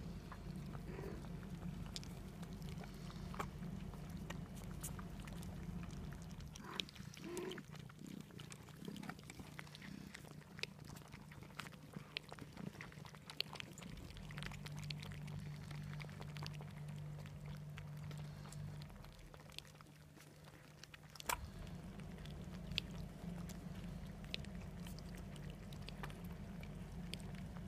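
Several kittens and cats lapping cat milk from a dish: an irregular run of small, quick licking clicks, over a low steady hum.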